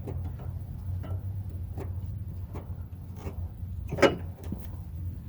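Light metal clicks, with one sharper knock about four seconds in, as a billet dogbone engine mount is eased into place by hand, over a steady low hum.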